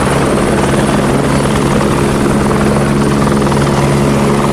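Helicopter sound: rapid rotor chop under a steady engine whine, loud and unchanging.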